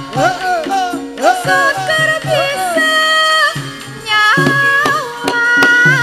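Javanese gamelan ensemble playing, with sustained ringing notes and a woman's singing voice in the first second or so. Several sharp knocks come about five seconds in.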